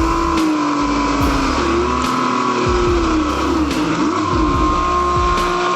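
A vehicle engine running, its pitch wavering up and down slightly, over background music with a deep bass beat.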